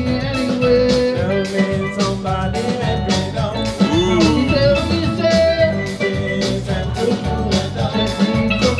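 Upbeat music with a steady beat.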